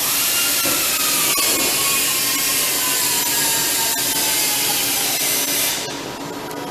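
Lathe turning down the weld build-up on an embossing roll's journal: a steady hissing cut with a faint whine that slowly falls in pitch, easing off about six seconds in.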